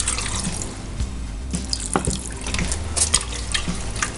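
About a quarter glass of water poured into a pressure cooker, splashing and trickling with small splashes throughout.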